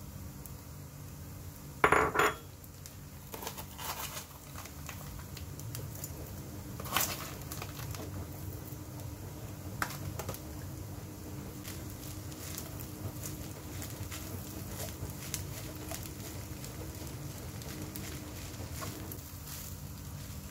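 Kitchen utensils clinking and scraping against cookware, with one loud clatter about two seconds in and lighter knocks and clicks after it, over a steady low hum.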